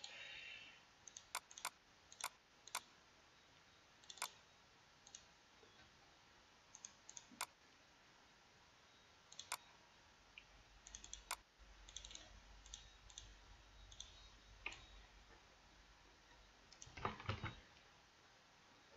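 Scattered single computer mouse clicks, at first about half a second apart and then several seconds apart, with softer ticks in between. A short low rustle comes about two seconds before the end.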